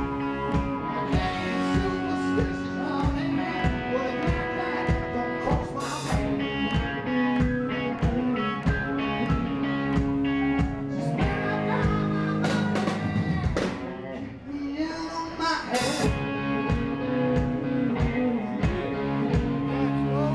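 Live rock band playing: electric guitars over a drum kit keeping a steady beat, with cymbal crashes about a third of the way in and again about three quarters in. The music thins out briefly about two thirds of the way in.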